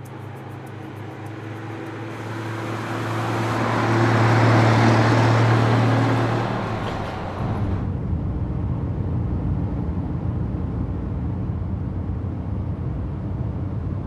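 An old truck drives past, its engine and road noise growing louder to a peak about four to five seconds in and then fading. From about seven seconds on, the truck's engine rumbles steadily, heard from inside its cab.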